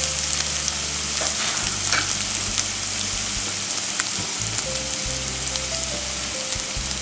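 Chopped onions sizzling in hot oil in a nonstick pan as they are sautéed toward browning. A spatula stirring them gives a few light scrapes and clicks over the steady sizzle.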